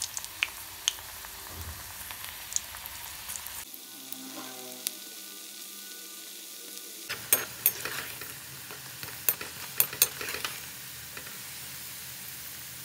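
Chana dal pakoda batter deep-frying in hot oil: a steady sizzle with small crackles, and a run of sharp clicks and pops in the second half.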